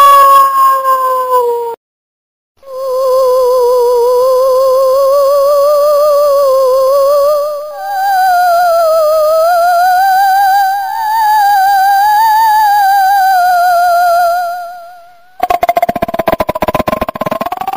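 Scary ghost-voice ringtone: a long, eerie wailing tone with a fast wobble that slowly rises and falls in pitch. A first wail fades out within the first two seconds, and near the end the sound switches to a harsh, rapidly pulsing buzz.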